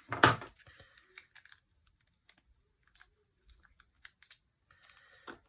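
Scattered light clicks and taps of small hardware being handled: the doorbell's installation screwdriver, special screws and their packaging.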